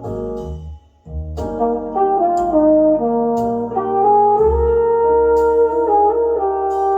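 Brass-led music played back through a pair of restored Pioneer CS-410 speakers, with a short break about a second in, then held horn chords.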